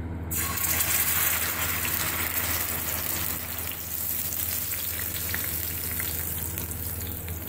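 Yogurt-marinated mutton liver poured onto hot oil in a tawa, sizzling as it lands. The sizzle starts suddenly just after the start, is strongest over the first couple of seconds, then settles into steady frying over a low hum.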